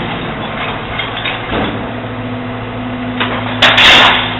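Venetian garbage boat's crane motor running with a steady hum that gets louder about two seconds in, while rubbish is loaded aboard; a loud crash of refuse being dumped near the end.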